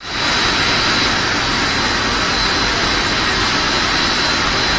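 Machinery of a puffed-snack twin-screw extrusion line running: a loud, steady mechanical noise with a thin high whine held on top of it.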